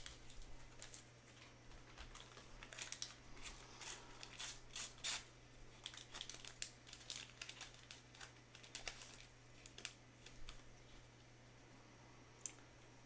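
Sticker-pack wrappers being torn open and stickers handled by gloved hands: irregular, faint crinkling and tearing rustles, over a low steady hum.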